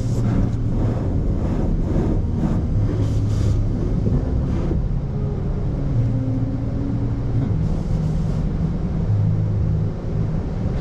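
Automatic tunnel car wash equipment running around the car, a steady low rumble. Repeated swishing sounds, about two a second, fade out about halfway through.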